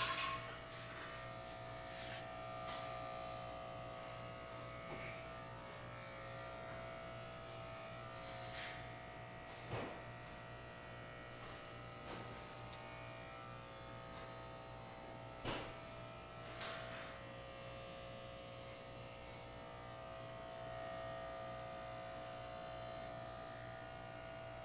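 Electric hair clippers buzzing steadily as they shave a head down to stubble, with a few brief knocks about ten and fifteen seconds in.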